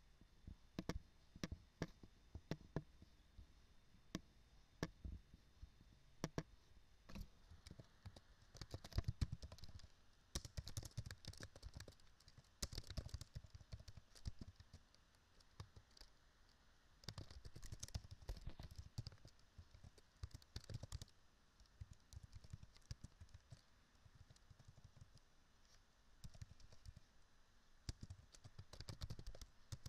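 Faint computer keyboard typing in quick runs of keystrokes, broken by pauses, with scattered single clicks over the first several seconds.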